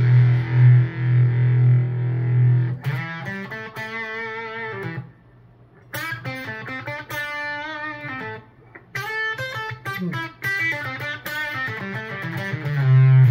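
Electric guitar played through a NativeAudio Fry Bread fuzz pedal. A fuzzed low note rings for about three seconds. Then come picked notes and chords with two short breaks, and the section ends on another low sustained note.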